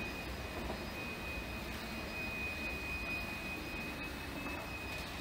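A steady high-pitched whine holding one pitch and wavering slightly in strength, over a low background rumble.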